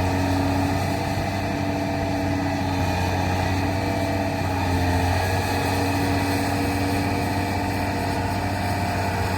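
Heavy diesel engine running steadily with an even, low hum.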